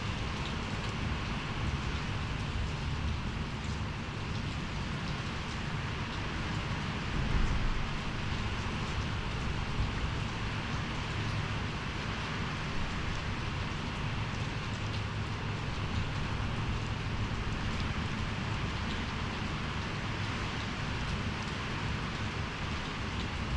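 Steady rain falling during a storm, with a low rumble underneath and a brief louder swell about seven seconds in.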